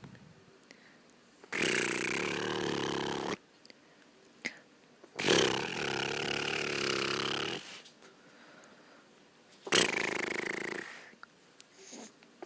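A person making funny noises in the throat, three drawn-out gravelly ones, each about one to two and a half seconds long.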